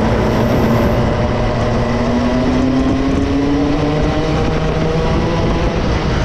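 Two-stroke racing kart engine running hard under load. Its note rises steadily as the kart accelerates for about three seconds, then drops to a lower pitch. It comes with rushing noise.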